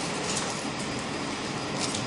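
Steady, even hiss of background room noise, with no voice.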